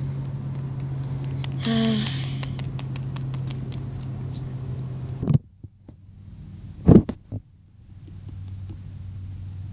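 Steady low hum that cuts off suddenly about five seconds in, followed by a quieter stretch with a single thump about seven seconds in.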